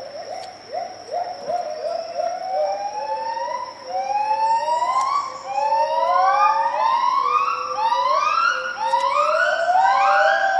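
Gibbon great call: a series of rising whooping notes, each sliding up in pitch, starting lower and climbing higher and coming faster as the call builds.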